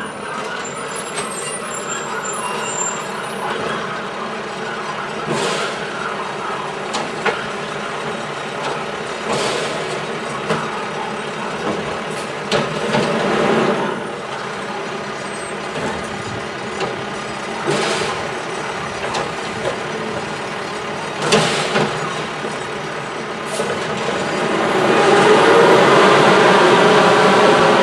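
Mack automated side-loader garbage truck running at the curb while its arm picks up and tips a roll-out garbage bin. Several short hisses and knocks sound over the engine, and the engine grows louder near the end as the truck pulls away.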